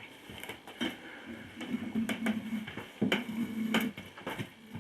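Sharp metal knocks and clanks from a manual tire changer's bar and a garden tractor tire being handled as the tire is flipped over on the changer, about seven knocks spread out, with a low hum twice in between.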